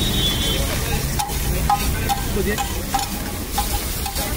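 Butter sizzling as it melts on a hot flat griddle, with a metal spatula scraping and knocking across the griddle several times as it is spread.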